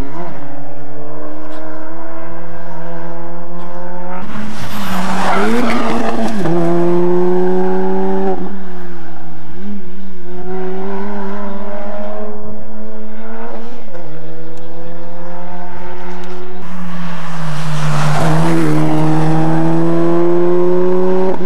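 Rally cars on a tarmac stage at full throttle: the engine note climbs through each gear and drops at every upshift, about every two to four seconds. Twice a loud rush of noise swells over the engine for about two seconds, as a car passes close.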